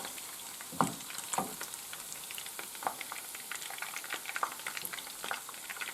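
Meatballs frying in hot vegetable oil in a frying pan: a steady sizzle with small crackling pops, with a few short knocks about one, one and a half and three seconds in.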